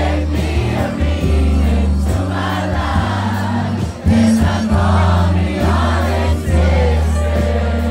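Live band playing a slow ballad with a steady bass, with many voices singing along together.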